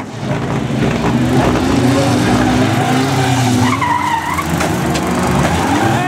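Several banger racing cars' engines running and revving as they drive on a dirt oval, with tyres skidding, and a brief high wavering squeal about four seconds in.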